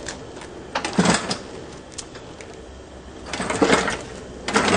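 Clattering and knocking in a few short bursts, about a second in, again around three and a half seconds, and at the end, as the car body and shop gear are shifted about by hand.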